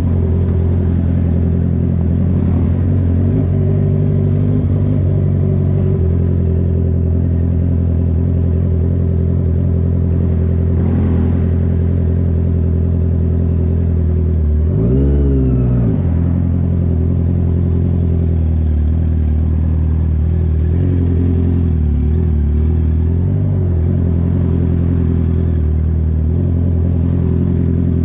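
Honda CB650R's inline-four engine running steadily through a loud exhaust while riding, its pitch rising and falling once about halfway through, with smaller changes in revs later on.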